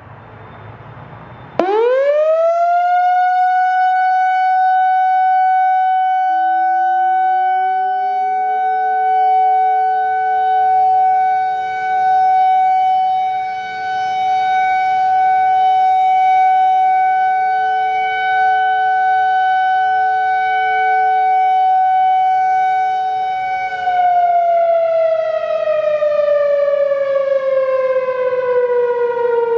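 Whelen 4004 electronic outdoor warning siren sounding a steady-tone test: about a second and a half in it rises quickly to a single held pitch, holds it, then begins winding down slowly near the end. A fainter, lower steady tone glides up and holds beneath it from about six seconds in.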